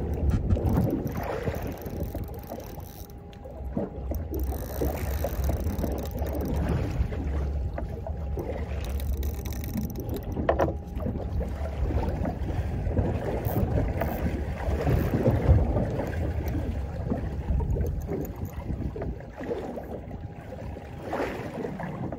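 Wind buffeting the microphone on a small boat at sea: a steady, gusty rumble that rises and falls, with the sea's wash beneath it.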